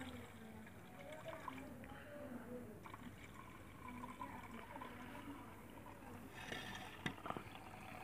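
Faint thin stream of liquid pouring from an aluminium pot into a steel bowl, trickling and splashing as the bowl fills. There are a couple of small sharp clicks about seven seconds in.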